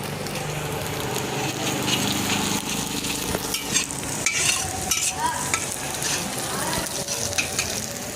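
Chopped garlic sizzling in hot oil in a pan while a spatula stirs it, with sharp scrapes and clicks against the pan from about three seconds in. A low steady hum runs underneath.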